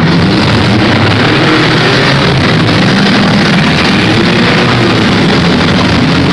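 Demolition derby cars' engines running and revving together at close range, a loud, dense din whose pitch wavers up and down, with music over it.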